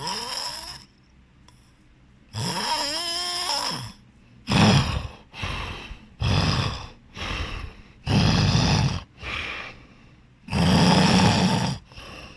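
A person snoring loudly, about ten snores in a row. The first two are long, with a wavering, gliding pitch; the rest come quicker and rougher, alternating louder and softer.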